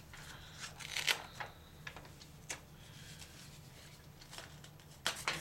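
Scattered crinkles and small clicks of protective plastic being peeled and pulled off a new laptop LCD panel, with a sharper crackle about a second in and again near the end. A faint low steady hum runs underneath.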